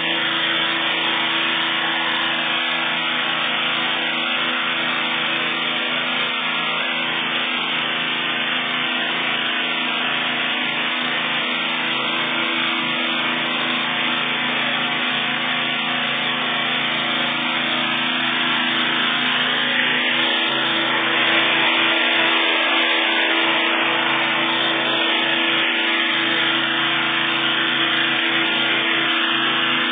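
Pressure washer running steadily, its motor humming under the hiss of the high-pressure water spray blasting a dirty surface.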